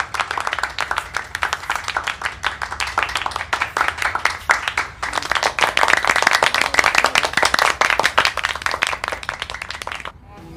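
Many hands clapping, like a crowd applauding: a dense, continuous patter of claps that stops abruptly near the end.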